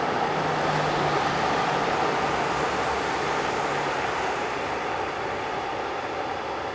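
Boeing 737-400's CFM56 jet engines running at low thrust as the airliner taxis: a steady rushing engine noise with a low hum under it that drops out about four seconds in, the whole slowly fading near the end.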